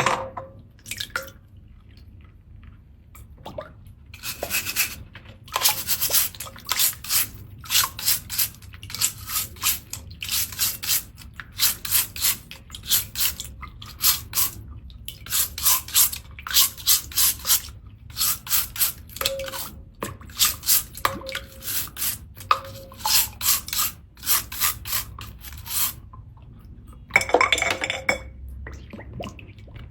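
A seashell being scrubbed clean in quick rhythmic strokes, about two a second in runs with short pauses, then one longer, louder stroke near the end.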